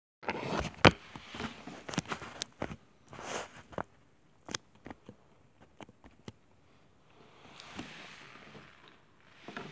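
Leather jacket rustling and phone handling noise, with the phone held against the jacket: irregular clicks, knocks and rustles, busiest in the first few seconds, then a few scattered ticks and a soft swish near the end.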